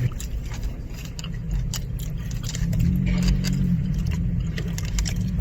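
Close-up eating sounds: scattered short clicks and smacks of chewing and handling food, over a steady low hum inside a car's cabin.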